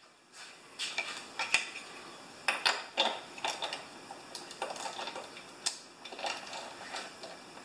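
Irregular light metallic clinks and ticks as a socket wrench is fitted onto a spark plug on a Honda lawn mower engine and worked to loosen it.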